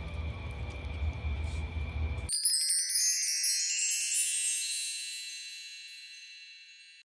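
A sparkling chime sound effect starts suddenly about two seconds in: a cascade of many high bell-like tones that fades out slowly over about four seconds. Before it there is only faint low room noise.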